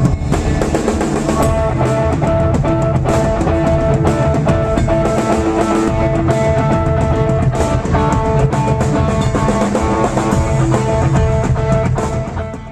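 Rock music with guitar and drum kit playing, fading out near the end.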